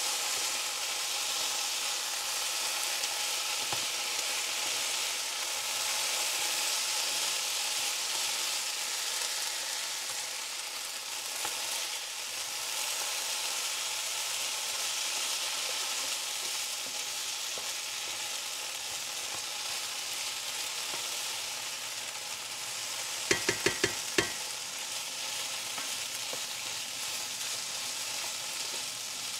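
Cubed potatoes sizzling in bacon fat in a cast iron skillet, stirred and tossed with a wooden spatula. Near the end comes a quick run of about five sharp knocks, the loudest sound.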